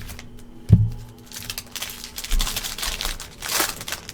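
A single thump a little under a second in, then a rapid run of crinkling and tearing as the plastic wrapper of a trading-card pack is ripped open.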